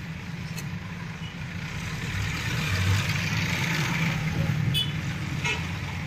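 Background road traffic: a steady low hum with a vehicle passing, loudest about three seconds in, and a few faint clicks near the end.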